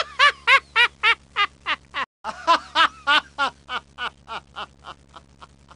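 A person laughing heartily in a long run of 'ha-ha' bursts, about three a second. The laughter breaks off for a moment about two seconds in, then goes on and grows fainter toward the end, over a low steady hum.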